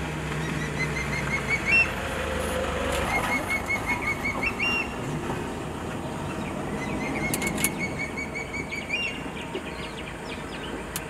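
Changeable hawk-eagle calling: three runs of quick, high, evenly spaced notes, each rising slightly and ending on a higher, drawn-out note. A low engine hum fades out in the first few seconds.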